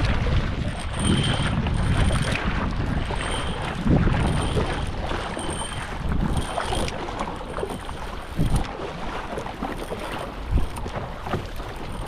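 Wind buffeting the microphone over water lapping and splashing around a paddled kayak, with a few louder splashes.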